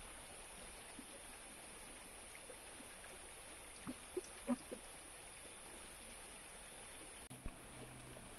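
Quiet outdoor ambience: a faint steady high hiss, with a few soft short knocks or rustles about halfway through.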